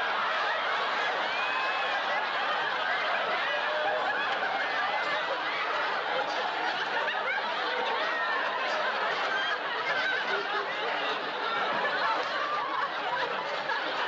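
Audience laughter: a large crowd laughing, a dense, continuous laugh that holds at a steady level without a break.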